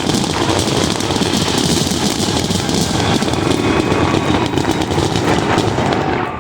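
A dense fireworks barrage: many shells bursting in quick succession, blending into a continuous rumble and crackle, with a brief dip right at the end.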